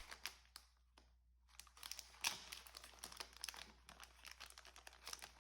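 Faint crinkling of plastic packaging being handled, with many small crackles and clicks and a short lull about a second in.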